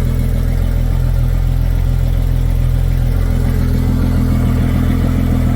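2025 Yamaha VMAX SHO 200 hp four-stroke outboard running steadily at idle, on a test run after a fresh oil change and a new fuel filter.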